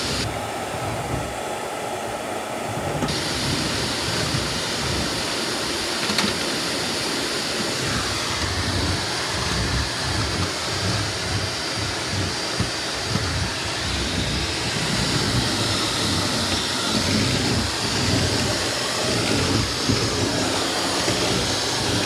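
Shark Navigator Lift-Away Professional upright vacuum cleaner running steadily in canister mode, its motor and airflow hissing while the floor nozzle is pushed back and forth over a hardwood floor. The low rumble rises and falls with the strokes, and the hiss brightens about three seconds in.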